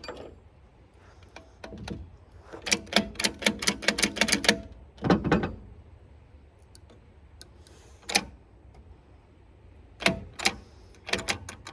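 Metal parts of an opened-up starter motor clicking and clinking as they are handled: a quick run of small clicks, then a duller knock, then a few separate clicks.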